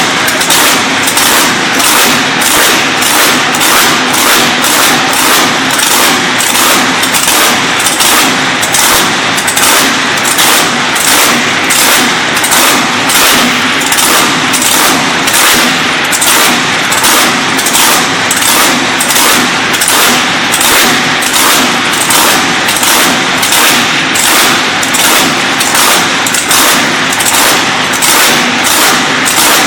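A high-horsepower speed boat engine running loud and steady, its sound pulsing evenly about twice a second.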